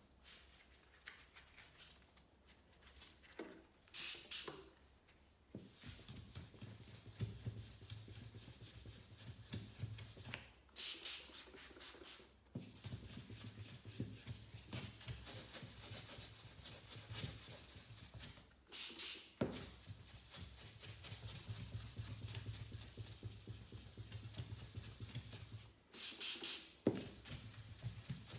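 Abrasive rubbing on a car's painted panel during a deep-scratch repair: a steady scratchy friction sound that stops briefly three times. Short, sharp hissy bursts come at the breaks.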